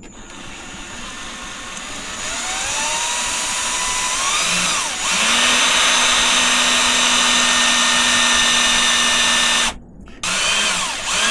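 Power drill boring a hole through a bicycle frame's down tube for a rivnut. The motor whine rises in pitch as it speeds up, then runs steadily, cuts off suddenly near the end and gives one short burst again.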